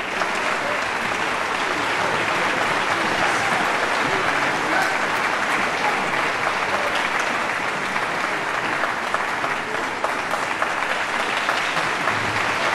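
Large audience applauding steadily, a dense, even clapping that does not let up.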